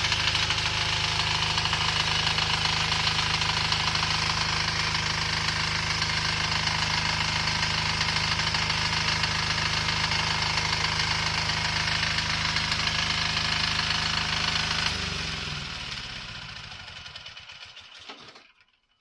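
Diesel generator running steadily, then shut down about fifteen seconds in. Its engine slows and dies away to silence over about three seconds.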